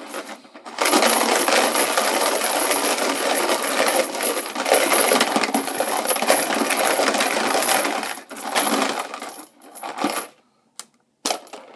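Fresh 7.62x25mm Tokarev brass cartridge cases rattling and clinking inside a lidded plastic container as it is shaken, to coat them with spray case lube before sizing. The dense rattle starts just under a second in, runs for about eight seconds, then stops, leaving a few scattered clinks.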